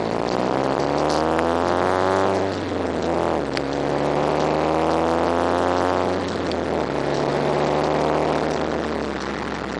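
Car engine accelerating up through the gears, heard from inside the car. Its pitch climbs, drops at an upshift about two and a half seconds in, climbs again, drops at a second upshift about six seconds in, and climbs once more.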